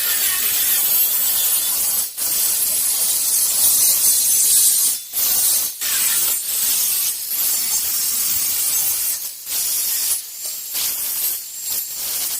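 Plasma cutter cutting steel: a loud, steady hiss, broken by short pauses several times.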